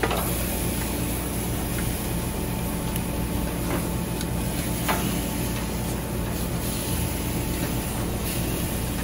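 Metal tongs clicking a few times against the grill grates as two bone-in ribeye steaks are flipped on a hot gas grill, over a steady hum and hiss.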